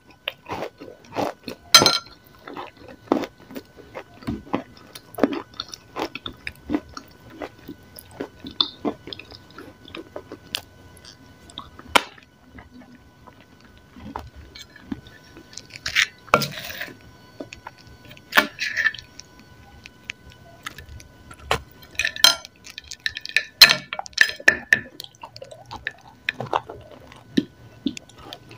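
Close-up eating sounds: irregular crunching bites and chewing of a dry, crumbly gray slab, with sharp wet mouth clicks in between and a few louder crunches.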